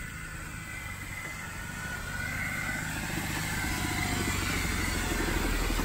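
2008 Jeep Wrangler Rubicon on 37-inch mud-terrain tyres driving, a steady low engine and tyre hum that grows steadily louder.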